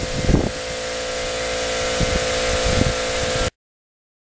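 A steady mechanical hum with a few low thumps, slowly growing louder, then cutting off suddenly about three and a half seconds in.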